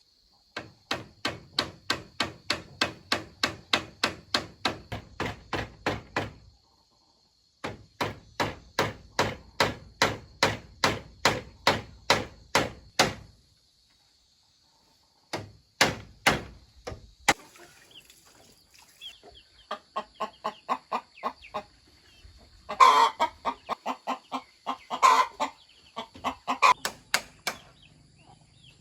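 Blows struck in a steady rhythm, about three or four a second, in two long runs, typical of a tool chopping or hammering bamboo. Then chickens cluck and squawk, loudest after the halfway point.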